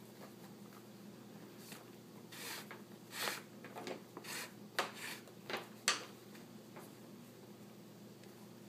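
Leather lace being pulled through the finger holes of a leather baseball glove: a string of short rubbing swishes and a few sharp ticks between about two and six seconds in, over a faint steady hum.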